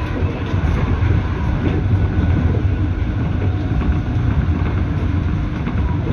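Metro-North electric commuter train in motion, heard from inside the front car: a steady low rumble of wheels and running gear, with a few faint clicks from the rails.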